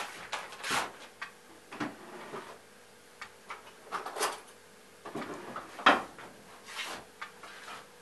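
Kitchen utensils and a packet being handled: scattered knocks, clatters and rustles, the loudest knock about six seconds in.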